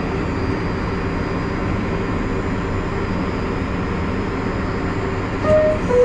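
Steady rumble and hum of an R62A subway car in a tunnel. Near the end come two brief tones, the second lower than the first.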